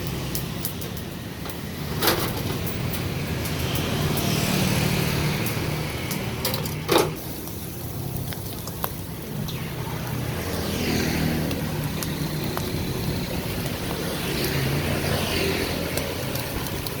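Street traffic running steadily, with two sharp knocks about two and seven seconds in.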